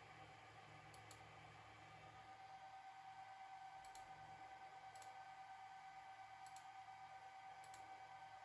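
Computer mouse button clicking, about five quick double-clicks spread out, over a faint steady high whine and low hum.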